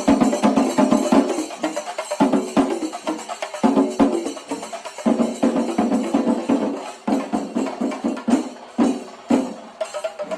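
Chenda melam: a group of chenda drums beaten with sticks in fast, dense strokes, with ilathalam hand cymbals clashing along.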